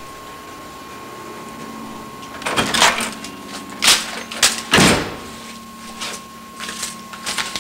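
A house door being opened and shut: a rattle about two and a half seconds in, sharp latch clicks, then a heavy bang near the middle as it closes, followed by lighter knocks and rustles.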